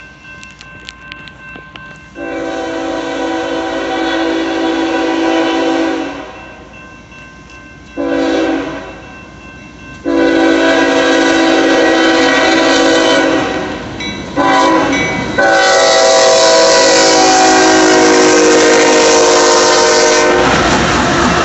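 Nathan Airchime K5HL five-chime air horn on a CSX freight locomotive sounding a sequence of blasts: a long one, a short one, a long one, a short one and a final long one, getting louder as the train approaches. Near the end the horn stops and the locomotive passes close by with a loud rush of engine and wheel noise.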